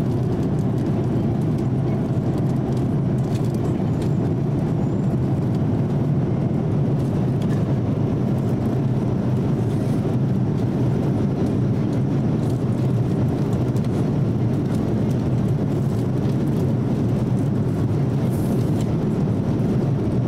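Boeing 787-8 passenger cabin at cruise: the steady low rumble of airflow and jet engines, unchanging throughout.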